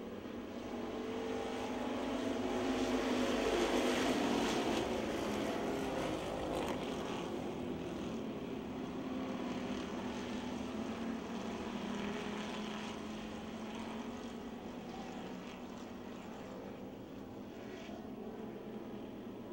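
A pack of street stock race cars running at speed on a dirt oval, their engines at full throttle. The sound swells to its loudest as the pack passes, about three to five seconds in, then settles to a steadier, lower level as the cars move on around the track.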